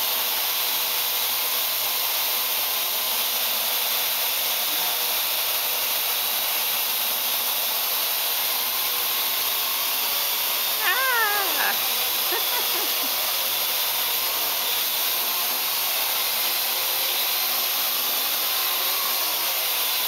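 Parrot AR Drone quadcopter's four rotors whirring steadily as it hovers. About eleven seconds in, a short cry falls in pitch over about a second.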